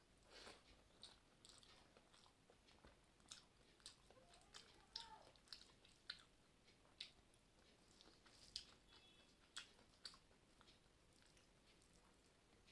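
Faint close-up chewing of rice and curry, with a string of soft wet mouth clicks and smacks, about one or two a second.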